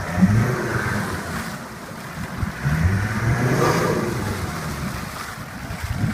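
Land Rover diesel engine revving as the 4x4 pushes through a deep water hole, the pitch rising in two surges, near the start and again about halfway, with water churning around it.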